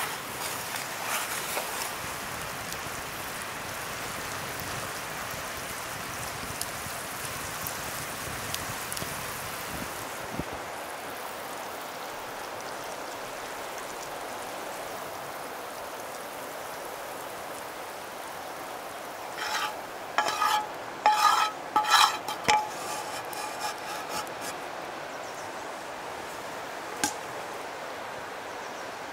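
A metal utensil clinks and scrapes against metal cookware in a quick run of ringing strikes about twenty seconds in, over a steady hiss.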